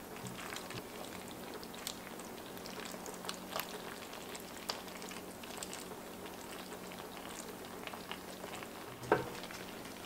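Spaghetti in a thick cheesy sauce simmering in an enamelled cast-iron pot while silicone-tipped tongs toss it, giving wet squelches and many small clicks over a steady low hum. A single knock comes near the end as the pot is moved off the hot plate.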